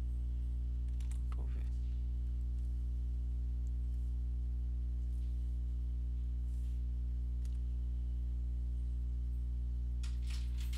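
Steady electrical mains hum with its overtones, unchanging in pitch and level, with a few faint clicks about a second in and again near the end.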